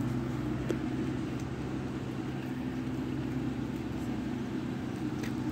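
Steady low hum of an idling motor vehicle engine, even in pitch and level throughout.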